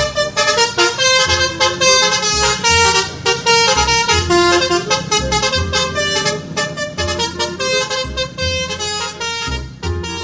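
Bus 'telolet basuri' multi-tone musical air horn playing a fast tune of quickly changing notes, over a low pulsing rumble.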